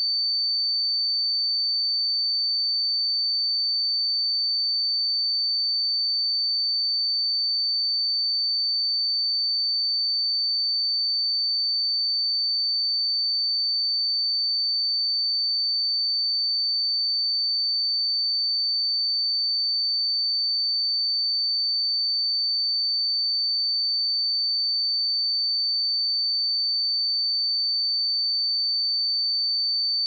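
A single pure sine-wave test tone at 4556 Hz, a steady high-pitched whistle held at one pitch and level.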